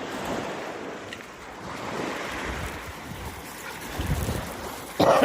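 Ocean surf washing in waves, swelling and easing, with wind buffeting the microphone and a low rumble about four seconds in.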